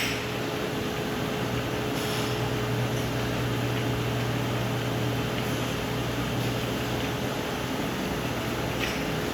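Jam production-line machinery running steadily: an even hiss with a low hum and a constant steady tone, and a few faint ticks.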